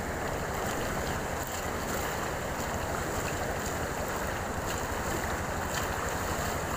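Steady rushing of muddy floodwater pouring across a road, with wind noise on the microphone.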